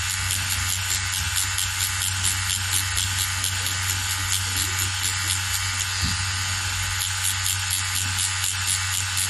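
Cartridge tattoo machine with a 3-round-liner needle buzzing steadily as it whip-shades skin, under background music with a quick, even beat.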